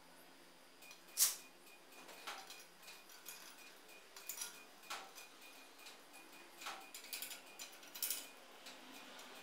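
Thin sheet-metal pieces clicking and clinking lightly against each other as they are handled, with scattered small knocks; the sharpest click comes about a second in.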